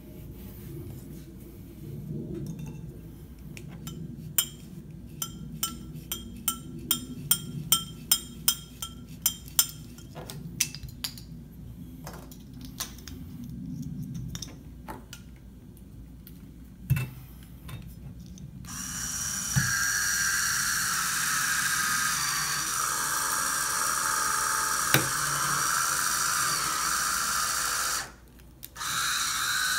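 Electric wine opener's motor running steadily with a whine for about nine seconds as it draws the cork. It stops briefly near the end and then starts again. Earlier there is a run of sharp, ringing clicks, several a second at times.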